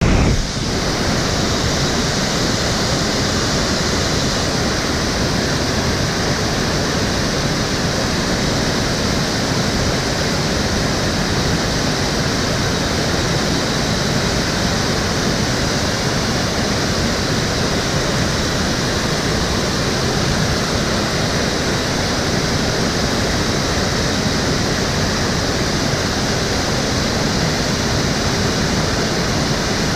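Water of the Cheonggyecheon stream flowing steadily, an even, unbroken rush of running water.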